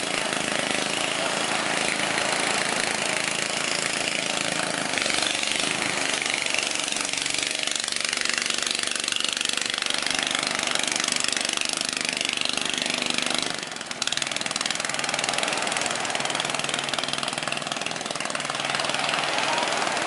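Steady rushing noise of waves breaking on the beach, with a motor running under it.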